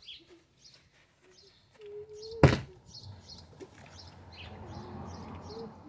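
Small birds chirping in short repeated calls, broken by a sharp thud about two and a half seconds in and another right at the end.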